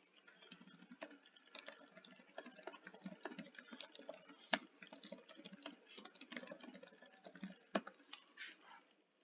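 Typing on a computer keyboard: a faint, quick, irregular run of keystrokes, with two sharper key clicks, one about halfway through and one near the end.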